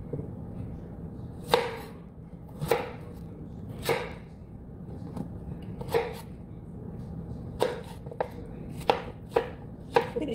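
Kitchen knife slicing a zucchini, each cut ending in a sharp knock on the cutting board, roughly one cut a second at an uneven pace.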